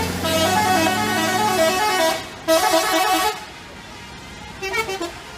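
Bus 'telolet' musical horn playing its quick stepping multi-note tune: two long phrases, then a short burst near the end, over a bus engine running low underneath at first.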